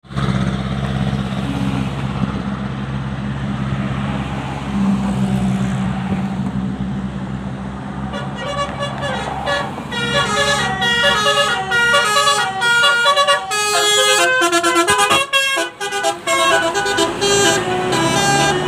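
Tour bus engine running, then about eight seconds in a basuri musical bus horn starts playing a quick melody of short notes stepping up and down in pitch.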